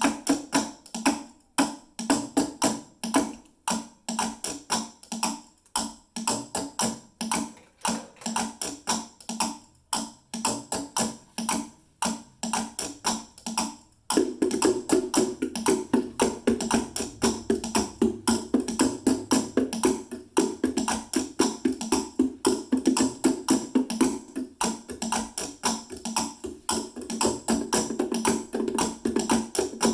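Rhythmic drumming on household objects such as plastic containers and a bucket, struck with sticks and hands. The beat is sparser at first and becomes a dense, continuous pattern about halfway through.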